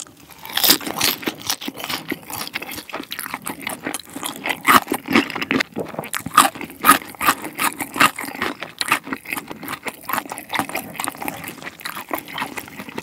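Close-miked chewing of a crisp-fried chicken-skin dumpling, many small wet crackles and crunches. Partway through comes a bite into a cube of pickled radish.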